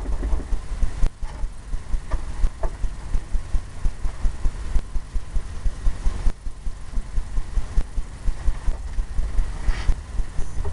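A 2-inch brush scrubbing blue-black oil paint in quick strokes, giving a continuous run of low, irregular thumps several times a second with a light bristle scratch over them.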